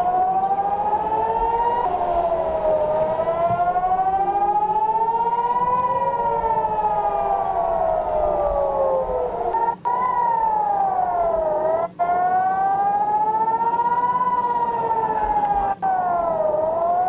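Civil defense warning siren wailing, its pitch rising and falling in slow sweeps of a few seconds, with more than one tone gliding at once. The sound cuts out briefly three times.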